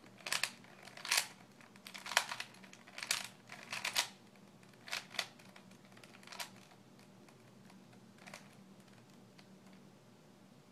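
Rubik's cube faces being twisted by hand: a run of short plastic clicks and clacks, several in quick succession over the first four seconds, then a few more spaced out until about eight seconds in.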